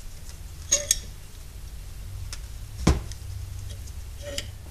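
A few light clicks and one sharp click about three seconds in, as a C-clamp presses the rubber dust boot into a brake caliper, over a low steady hum.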